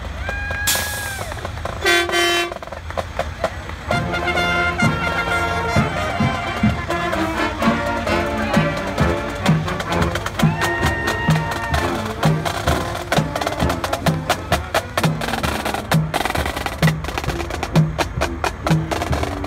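Mack semi-truck's air horn sounding several blasts: a short one about half a second in, a lower, louder one at about two seconds, and a longer one around ten and a half seconds. From about four seconds, music with a steady drum beat and sharp percussion clicks plays under it.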